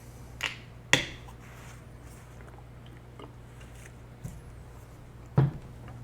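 A few sharp clicks and knocks from handling things at a workbench, two of them loud (about a second in and near the end), over a steady low hum.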